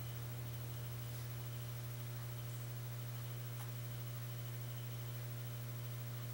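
Steady low electrical hum with a stack of overtones, like mains hum, holding unchanged throughout.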